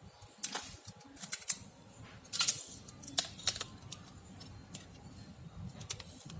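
Irregular sharp clicks and taps of small phone parts and tools being handled, loudest around a second and a half and two and a half seconds in, with quiet background music underneath.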